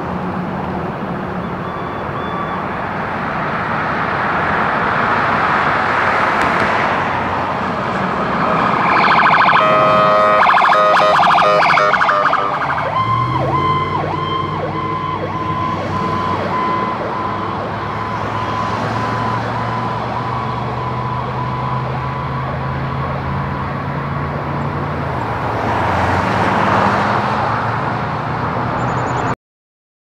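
Emergency siren on a fire battalion chief's response vehicle moving through traffic, over the sound of passing cars. About a third of the way in it runs as a fast warble, then changes to a steadier tone with short regular breaks; the sound cuts off just before the end.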